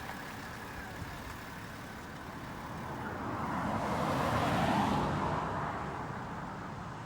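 A motor vehicle going by, its engine and tyre noise swelling to a peak about four to five seconds in, then fading.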